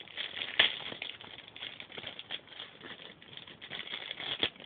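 Plastic wrapping crinkling and crackling as the packet holding a sticker sheet is opened: a dense run of small irregular clicks, with a sharper snap about half a second in and another near the end.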